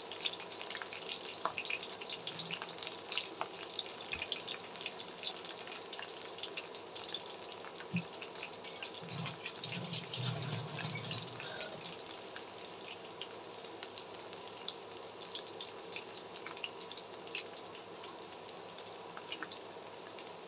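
Battered onion flower stalks deep-frying in hot oil in a wok: a steady sizzle full of small crackles and pops.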